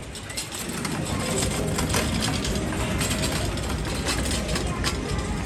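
Busy city street ambience: a steady traffic rumble with many short clicks and knocks mixed in.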